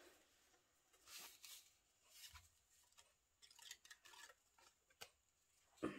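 Faint, scattered clicks and light rustles of a plastic diamond painting drill tray being handled and pried at to open it, with a sharper click near the end.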